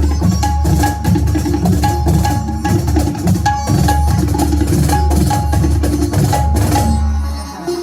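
Indian ensemble music: tabla playing a fast, even rhythmic pattern over a steady low drone, with a short high note repeating in time. The music dips briefly near the end.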